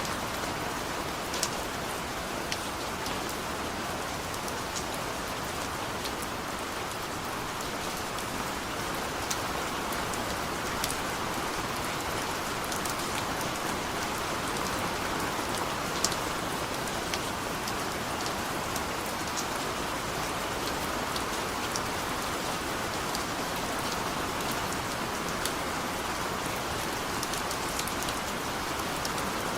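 Heavy rain falling steadily, with scattered sharp taps of single drops striking close by, one louder tap about halfway through.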